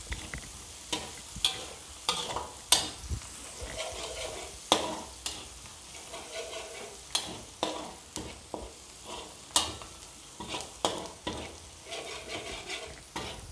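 Chopped onion and garlic sizzling in melted butter in a pan while a spoon stirs them, with irregular scraping clicks of the spoon against the pan.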